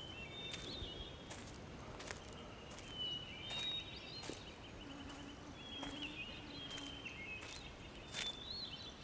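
Footsteps crunching on a dry, leaf-strewn dirt trail, a step about every second, with small birds chirping and trilling.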